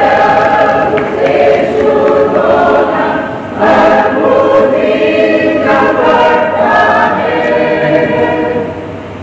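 Mixed church choir of women and men singing a hymn together in unison and parts, with a short break between phrases about three and a half seconds in.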